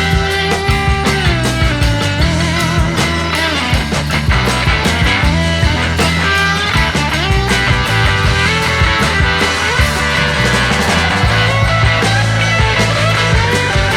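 Background rock-style music with a steady drum beat.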